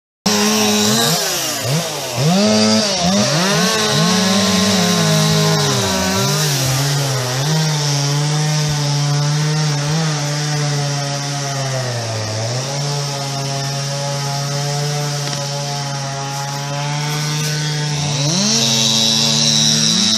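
Two-stroke chainsaw running, cutting in abruptly just after the start. Its revs rise and fall over the first several seconds, then it holds a steady, lower pitch and revs higher again near the end.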